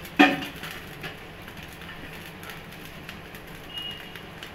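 Garlic cloves and asafoetida frying gently in a little hot ghee in a cast iron kadai over a gas burner: a steady soft hiss. A brief vocal sound just after the start is the loudest thing.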